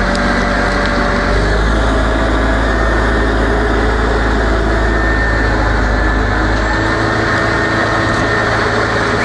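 A heavy-equipment engine running steadily, with a deep low hum that drops away about seven seconds in.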